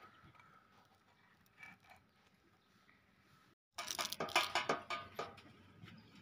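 Fresh coriander being plucked by hand: crisp rustling and snapping of leaves and stems with small clicks. It is near silent at first and starts about two thirds of the way in.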